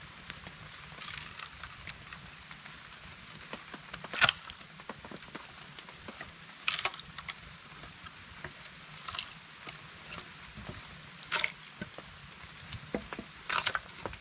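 Axe splitting a log lengthwise into boards: five sharp knocks and cracks of the blade and the splitting wood, about every two and a half seconds, the first the loudest, over a steady background hiss.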